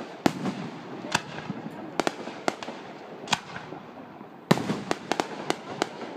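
Aerial firework shells bursting: sharp bangs about once a second, then a louder bang about four and a half seconds in, followed by a quick run of several more.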